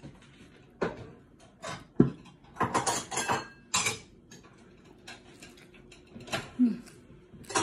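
Eating by hand: scattered short clicks and smacks of chewing and of fingers on a ceramic plate of fish and rice, busiest in the middle, with a short hum near the end.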